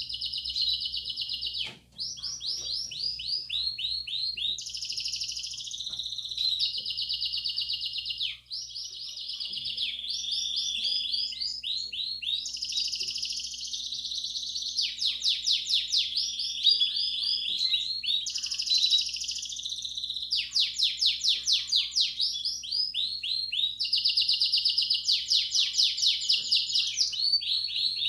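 Belgian canary singing a continuous bell-like 'campainha' song: fast rolling trills and rapid repeated notes, the phrase changing every second or two.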